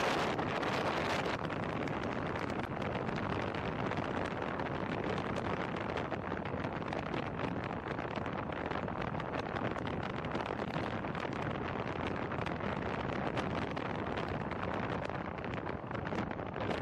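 Wind rushing over the microphone of a camera mounted on the outside of a moving car, mixed with tyre and road noise; a steady rush with no distinct engine note.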